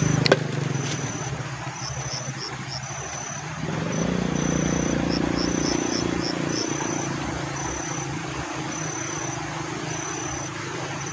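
A motor engine humming steadily, swelling about four seconds in and then slowly fading, under an insect chirping in short repeated high notes. A single sharp click comes just after the start.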